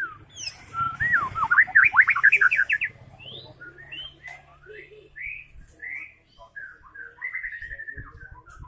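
White-rumped shama singing: a loud burst of fast whistled notes sweeping up and down in the first few seconds, then a run of separate, softer short whistles and phrases that drop lower near the end.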